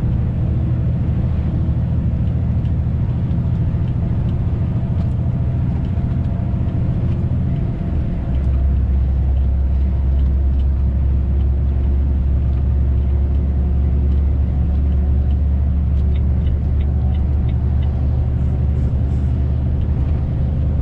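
Diesel engine of a heavily loaded truck heard from inside the cab, pulling under load while accelerating to overtake. About eight seconds in the sound dips briefly, and then the engine note settles lower and heavier.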